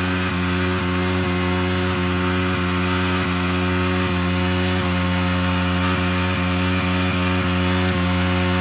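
Yamaha R15M's single-cylinder engine held at steady revs during a burnout, the rear tyre spinning on the road and smoking.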